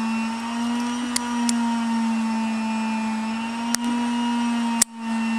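Small metal clicks from an old padlock being worked with its key, over a steady machine hum. There are separate clicks about a second in, near four seconds and near five seconds.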